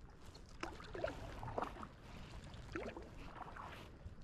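Stand-up paddle dipping and pulling through calm water, two quiet strokes about two seconds apart, with small splashes and gurgles.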